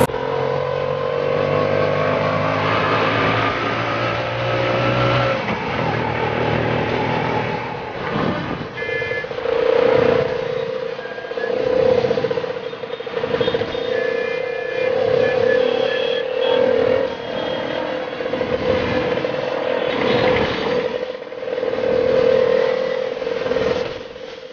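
Auto-rickshaw engine pulling through traffic, heard from inside the cab. The note rises as it accelerates over the first five seconds, then settles into a steady drone. A few brief high beeps come in the middle.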